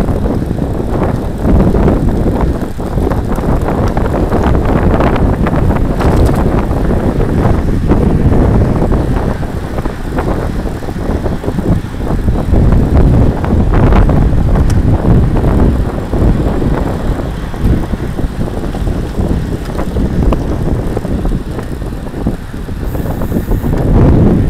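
Loud wind buffeting the microphone of a handlebar-mounted camera on a road bike riding at speed, with road noise from the tyres; it wavers in strength and eases briefly a few times.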